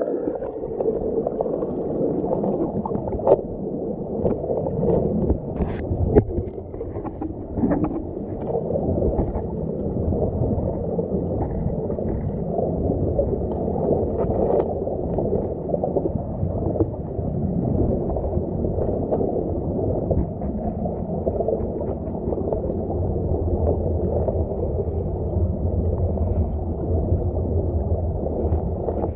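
Stream current heard underwater through a submerged camera: a steady, muffled rush with no high end. Short clicks and knocks come now and then, most of them in the first several seconds.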